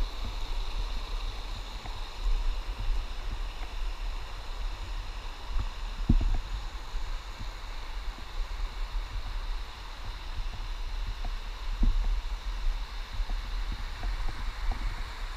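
Steady wash of running water over a low, uneven rumble, with two dull knocks about six and twelve seconds in.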